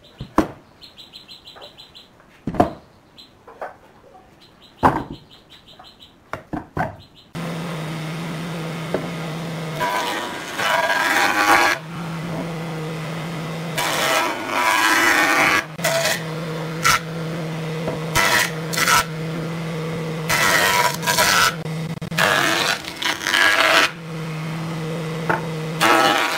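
Boards knocking and clattering as they are handled on a workbench. From about seven seconds in, a jointer runs with a steady motor hum, and its cutterhead rasps loudly across a pine board in several passes.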